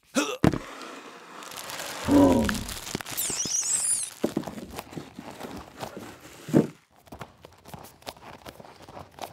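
Unboxing handling sounds: a cardboard camera box and tissue paper rustling and crinkling, with scattered knocks and a few short squeaks as a camera is lifted out and set down on a wooden table.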